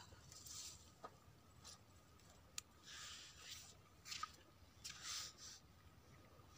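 Near silence, with a few faint soft rustles and a single small click about halfway through, over a faint steady high tone.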